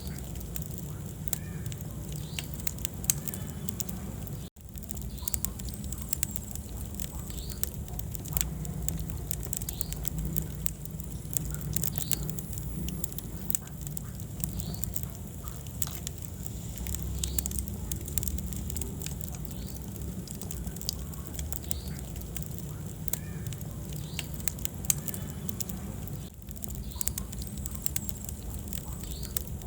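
Wood fire burning in a fireplace: a steady low rumble of flames with irregular sharp crackles and pops. The sound cuts out for an instant about four and a half seconds in.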